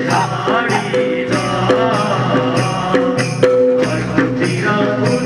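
Loud folk dance music with a steady percussion beat and held instrument notes.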